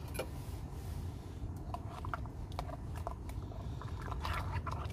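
Water in a pan on a camping stove coming up to the boil: small irregular ticks and pops that grow more frequent, over a steady low rumble.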